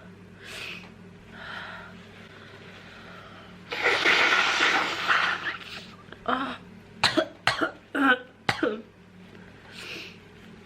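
A woman with a cold breathing heavily, with a long, noisy burst of breath about four seconds in, then a quick fit of about five coughs.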